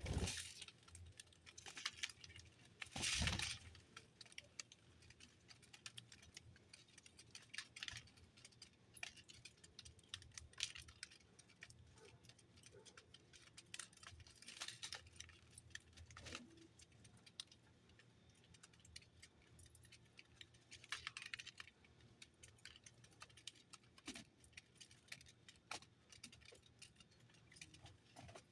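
Faint, irregular clicking and tapping, with a louder clatter about three seconds in, typical of small birds pecking at seed and hopping about a feeder.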